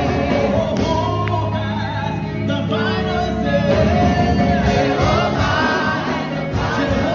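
Gospel worship music: a choir singing over a band accompaniment.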